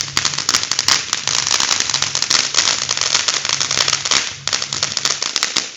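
Small consumer fireworks going off as a dense, rapid crackle of many small sharp bangs, with no let-up.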